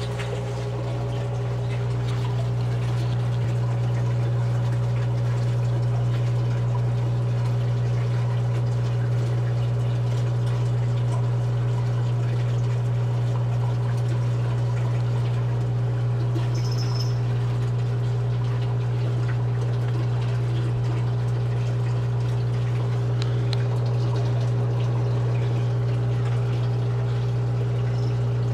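Steady low hum of a reef aquarium's pumps running, with faint water noise.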